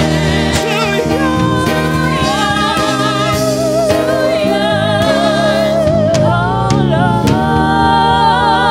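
Gospel worship music: a singing voice holds long notes with a wide vibrato over sustained instrumental accompaniment, moving up to a new held note about six seconds in.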